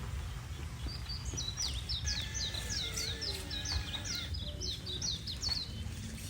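A songbird calling a rapid series of short, downward-sliding chirps, about three a second, starting about a second in and stopping near the end, over a steady low rumble.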